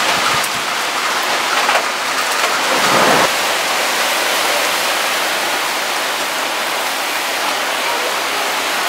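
Heavy thunderstorm rain pouring down in a steady hiss. About three seconds in, a brief louder swell builds and cuts off abruptly.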